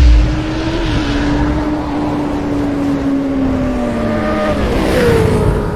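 Motorcycle engine sound effect held at high revs, its note sagging slowly and then dropping near the end, with a quick pitch swoop about five seconds in over a steady rushing hiss.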